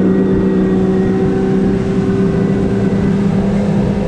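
Outboard engines of a center-console boat running at steady cruising speed, holding one even pitch, over the rush of water and wind along the hull.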